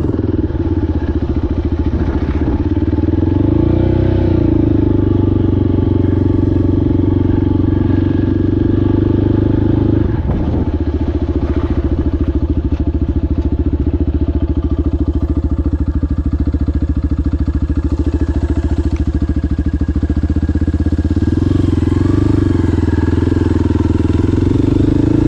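Adventure motorcycle engine running steadily under way, with the engine speed rising and easing again about four seconds in and once more near the end.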